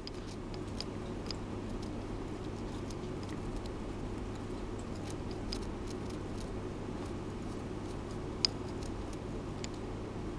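Hamster gnawing and tearing at a cotton swab: scattered small, sharp clicks, with one louder click about eight seconds in.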